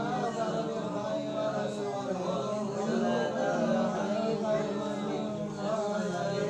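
Music with sung, chant-like voices, going on steadily.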